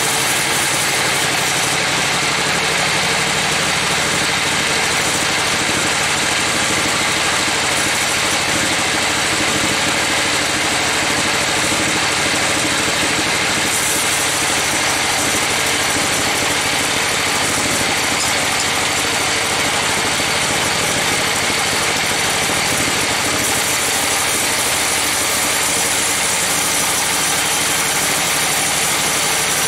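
Band sawmill running steadily under power, its band blade sawing lengthwise through a trembesi (rain tree) log.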